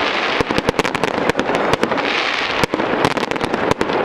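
Fireworks display: dense, rapid crackling pops from glittering shell bursts, over the rushing hiss of a ground fountain that swells about two seconds in.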